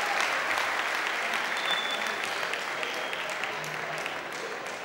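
Audience applauding, a dense patter of clapping that gradually fades.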